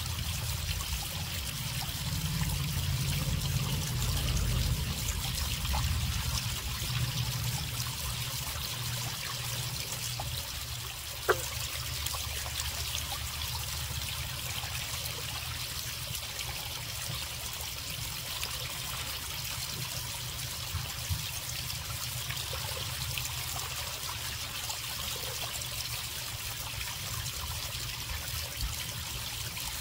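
Water trickling steadily, as from a garden pond, with a low rumble underneath. One brief sharp sound about eleven seconds in.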